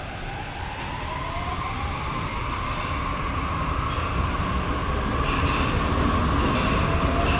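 Metro train pulling out of an underground station, growing louder as it gathers speed, with a whine that rises in pitch over the first few seconds over a steady rumble of wheels on rails.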